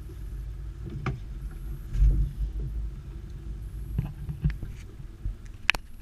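Knocks and clatters of a creel being handled in a small open boat, over a steady low rumble. A heavy thump about two seconds in and a sharp tap near the end.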